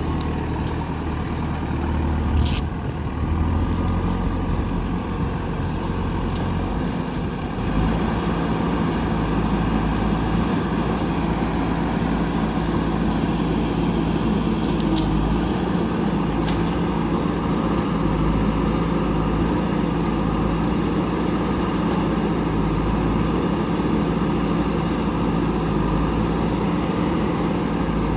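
JCB 3DX backhoe loader's diesel engine running steadily. About eight seconds in it steps up to a higher, steadier speed as the machine works, with a brief sharp click or knock now and then.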